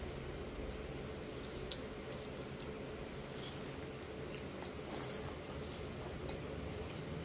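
Wet mouth sounds of eating creamy shrimp fettuccine alfredo: scattered sticky clicks and smacks, the sharpest about two seconds in, over a steady low hum.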